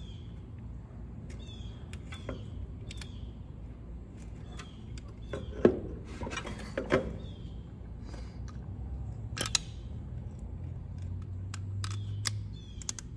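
Small metal clicks and knocks from hands fitting a stop cable onto a diesel injection pump's linkage, the two loudest knocks a little past the middle. A bird chirps over and over in the background.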